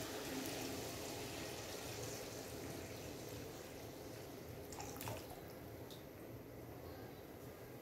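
Water pouring from a plastic jug into a hot pan of spiced masala, adding the broth for a curry: a faint, steady splashing that slowly fades. A light click about five seconds in.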